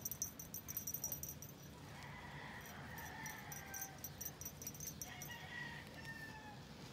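A chicken calling twice, each call drawn out and slowly falling. A quick run of sharp, high-pitched clicks sounds over the first few seconds.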